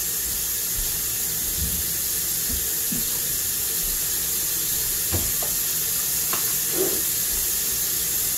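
Kitchen tap running steadily into a stainless steel sink, with a few light knocks partway through.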